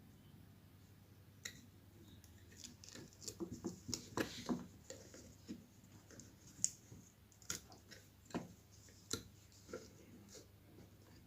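Faint clicks, taps and light scrapes of small parts being handled and fitted into a horn driver unit, busiest about four seconds in, then a few sharper single clicks about a second apart.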